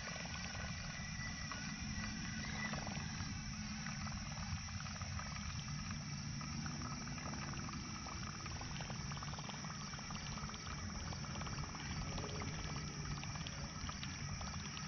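Fishing reel being cranked steadily during a lure retrieve: a continuous soft whirr with fine, rapid clicking.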